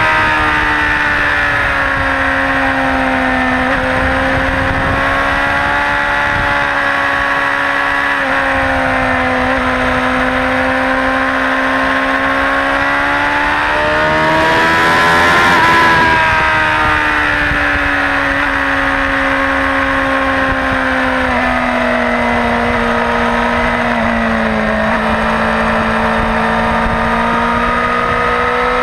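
Suzuki GSX-R600 K4 inline-four sportbike engine running hard at high revs, with wind noise at track speed. The engine note climbs and grows louder about 14 seconds in, then falls abruptly around 16 seconds.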